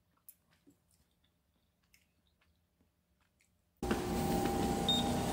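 Faint, scattered clicks of metal chopsticks picking up noodles from a bowl. About four seconds in, a cut brings loud, steady subway-station noise with a short, high beep about a second later.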